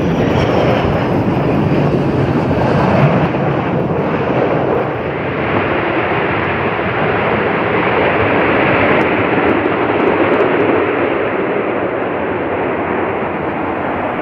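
Loud, steady jet engine noise from the MD-83 airliner's two rear-mounted Pratt & Whitney JT8D turbofans as the jet rolls along the runway.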